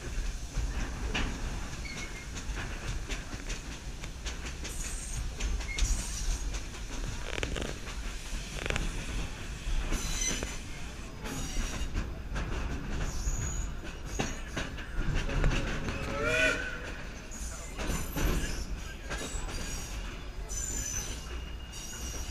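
Passenger train rolling along the track: a steady rumble with clicks of the wheels over the rails, and high-pitched wheel squeal that comes and goes, mostly in the second half, as the train takes a curve.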